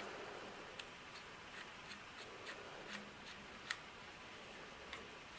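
Faint, irregular small plastic clicks and rubbing as the weight-release screw on a Cyborg R.A.T. 7 gaming mouse is turned by hand, with one sharper click a little past halfway.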